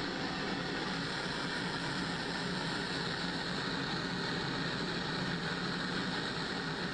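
Propane burner of a Volcano glass-bead oven burning steadily: an even rushing noise with no changes.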